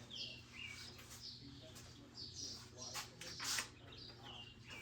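Faint songbird chirping: a string of short chirps, each sliding down in pitch, repeated every half second or so. A few light handling clicks come about three seconds in.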